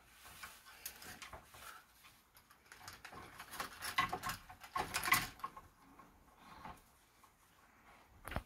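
Pet parrot scratching and picking at its perch: irregular clicks and rustles, busiest about four to five seconds in.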